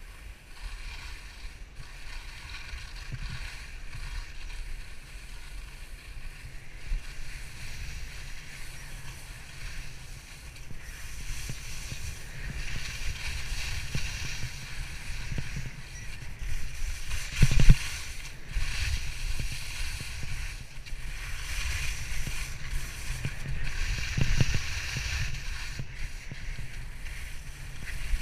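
Skis hissing and scraping over spring snow, the hiss swelling with each turn, over wind buffeting the action camera's microphone. A little past halfway there is a single sharp thump.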